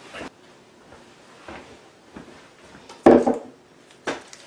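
Kitchen handling noises: a few faint knocks, a louder thump about three seconds in, and a sharp click near the end.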